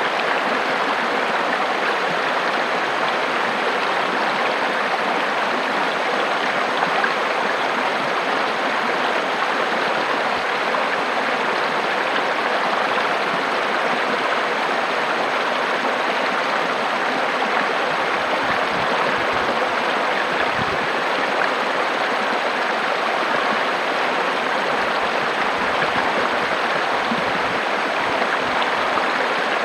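River water rushing over rocks: a steady, full-bodied splashing and gurgling that does not change.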